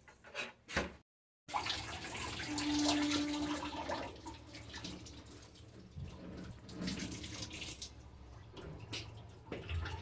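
Water running and splashing, broken by a brief silent gap about a second in.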